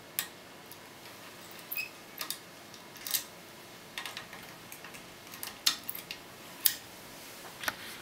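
Scattered sharp metal clicks and ticks of a lock pick working in the keyway of a TESA T60 cutaway euro cylinder, then drawn out, irregularly spaced over a faint steady hiss.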